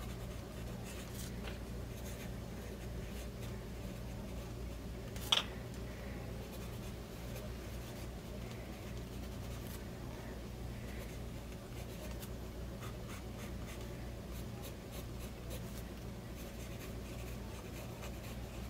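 The steel medium nib of a Lamy Safari fountain pen scratches lightly across dot-grid notebook paper as words and hatch strokes are written. A single sharp click comes about five seconds in.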